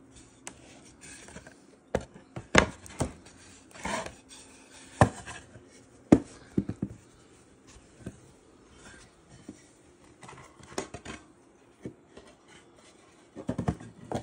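Wooden beehive super boards with box-joint ends knocking and clattering as they are picked up, handled and fitted together on a hard tabletop: a dozen or so scattered sharp knocks with rubbing in between.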